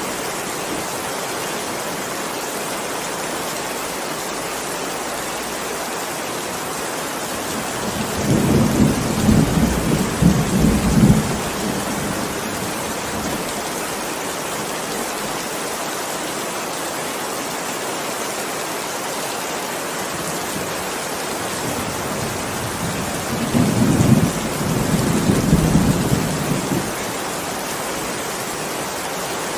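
Steady heavy rain falling, with thunder rumbling twice, once about a quarter of the way in and again near the end, each rumble lasting about three seconds.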